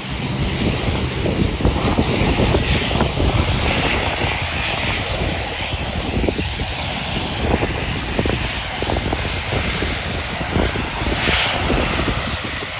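Airliner's jet engines running loud and steady, a broad rushing noise with a rough low crackle and a faint high whine.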